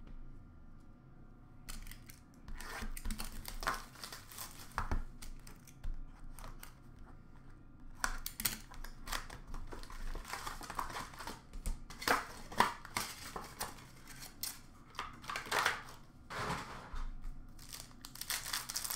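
Hockey card pack wrappers torn open by hand and crinkling, with cards handled, in short irregular bursts that start about two seconds in and grow busier in the second half.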